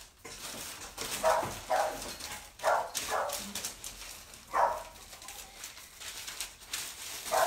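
A dog barking repeatedly in short single barks and quick pairs, with uneven gaps between them.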